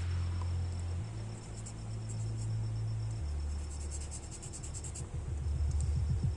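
Background music: low sustained bass notes that shift pitch about a second in and again about three seconds in, turning into a pulsing beat near the end.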